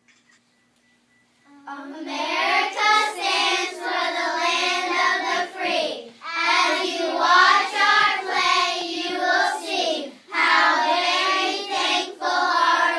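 A group of young children singing together, starting about two seconds in, in three phrases separated by brief breaks.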